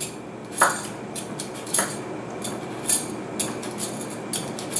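Metal vegetable peeler scraping the skin off a raw golden beet in short strokes, two or three a second at an uneven pace.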